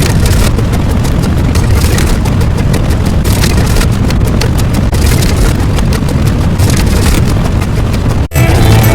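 Loud, steady rushing noise with a heavy deep rumble and no clear pitch. It drops out for a moment near the end, and music comes back in.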